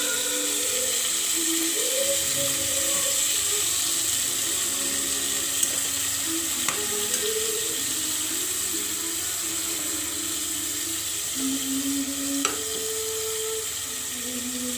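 Tuna and shrimp sizzling steadily in hot oil in an aluminium pot as they sauté with onions and tomatoes. A metal ladle clicks against the pot a few times.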